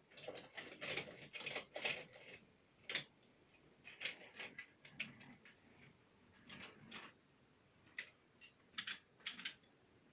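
Toy trains and track pieces being handled, making irregular clicks and clacks, some in quick clusters.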